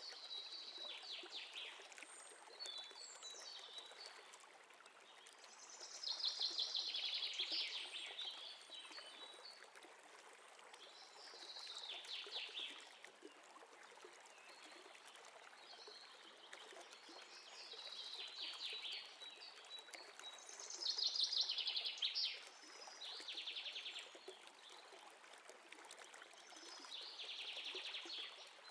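Birds singing: repeated rapid trills that slide down in pitch, coming every few seconds, with short thin whistled notes between them, over a faint steady hiss.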